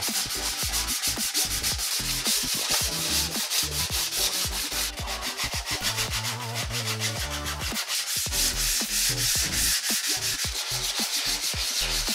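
Hand sanding of 3D-printed plastic hull parts with a round sanding pad: quick, even back-and-forth rubbing strokes, smoothing away print imperfections.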